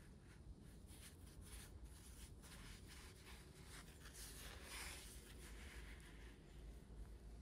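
Faint scratching and rubbing strokes, with a louder brushing rustle about four and a half seconds in, over a low steady rumble.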